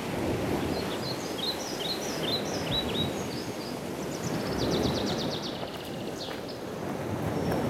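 Small birds chirping: a run of short falling chirps, then a quick trill about four seconds in, over a steady rushing noise.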